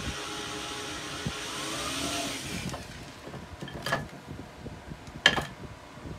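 Cordless drill running, its motor whine wavering in pitch as it drives screws into a wooden mounting block, stopping a little under three seconds in. Two short sharp knocks follow.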